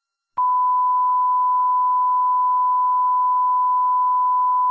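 Steady electronic beep tone at a single fixed pitch, cutting in sharply about half a second in and holding without change.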